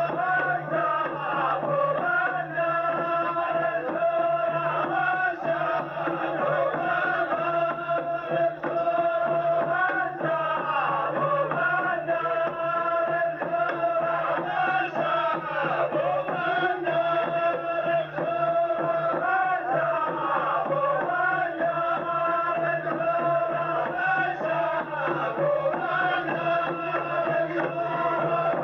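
A group of men chanting an ardah sword-dance poem in unison, in long sustained sung lines, on an old recording whose sound is cut off in the highs.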